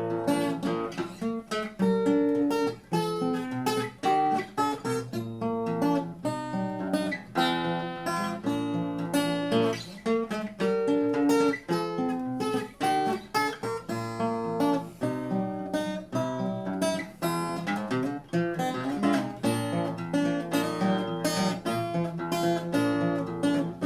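Solo acoustic guitar fingerpicked, a bright, busy instrumental tune in A with plucked notes ringing over a repeating bass.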